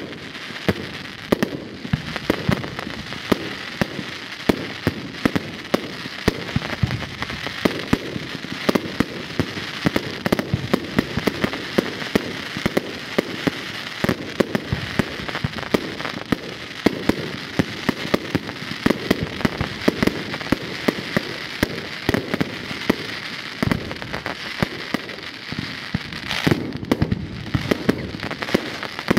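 Fireworks going off in a dense, continuous barrage: sharp cracks and bangs several times a second over a steady crackle.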